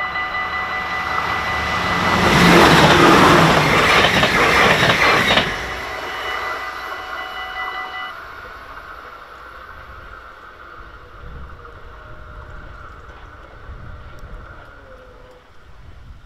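Level-crossing warning bell ringing steadily while a train passes at speed close by, loudest for about three seconds near the start. The bell cuts off about eight seconds in as the crossing clears.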